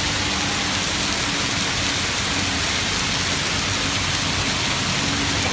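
Heavy hail mixed with rain falling onto brick paving and a street, a dense steady hiss and patter with no let-up. A faint low hum runs underneath.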